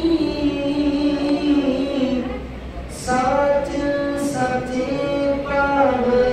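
Voices singing a slow Gurbani hymn together without instruments, in long held notes; the line breaks off about two and a half seconds in and starts again half a second later.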